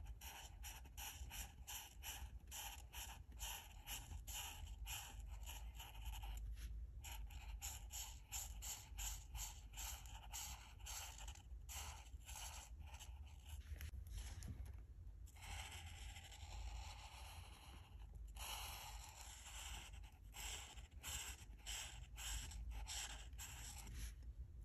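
Alcohol marker tips scratching across paper in quick back-and-forth colouring strokes, about three to four a second, with brief pauses. A little past the middle come a few longer, smoother strokes.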